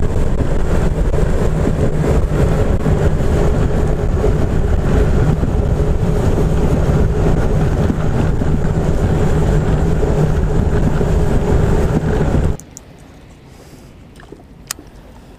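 Small boat's motor running at speed across open water, a steady loud drone mixed with wind and water noise. It cuts off abruptly about twelve seconds in, leaving a quiet background with a few light clicks.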